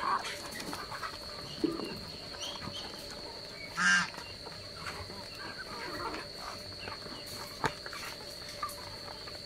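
A mixed flock of ducks and chickens feeding at a basin of rice, with soft scattered calls and a few sharp clicks as bills strike the basin. About four seconds in, one bird gives a single loud honk.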